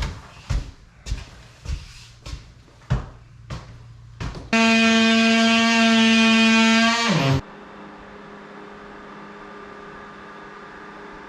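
A run of sharp knocks, about two a second, then an electric power tool runs loudly at a steady pitch for about three seconds and winds down, falling in pitch as it stops. A steady low hum remains after it.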